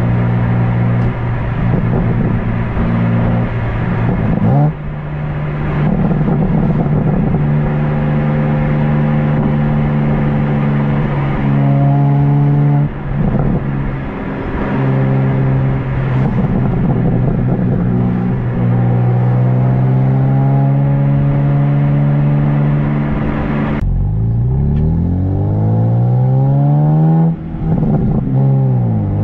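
Exhaust of a 2023 BMW M2's twin-turbo inline-six, stock exhaust in Sport Plus mode, heard at the tailpipes while driving. It holds a steady engine note with a few gear changes. About 24 seconds in it lifts off, and the note sweeps down and back up through downshifts.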